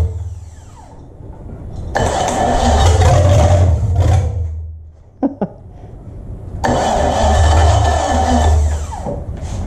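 Rebuilt Chevy 305 small-block V8 being started on a test stand after its top-end rebuild. Twice it catches abruptly with a burst, runs for about two seconds and then winds down, without settling into an idle.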